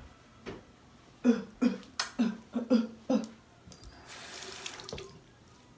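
A woman's voice in a quick string of short wordless sounds, then a bathroom tap running briefly for about a second.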